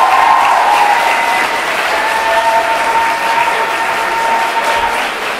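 Audience applauding at the end of a concert, with a long held tone sounding over the clapping, rising at first and then steady.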